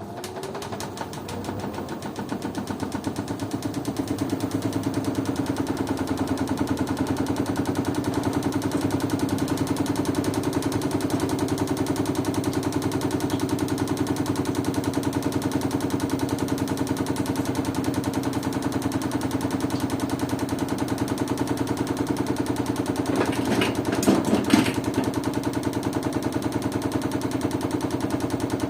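LG washing machine drum running at speed, building up over the first few seconds to a steady hum with a fast, continuous rattle. Near the end, a brief cluster of louder knocks.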